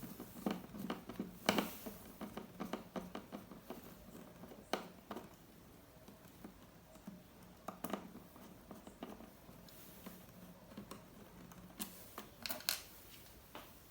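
Keyboard retaining screws of an HP ProBook 4520s laptop being worked with a small screwdriver: light, scattered clicks and scrapes of the tool and the laptop's plastic case, with a few sharper clicks and a short cluster of them near the end.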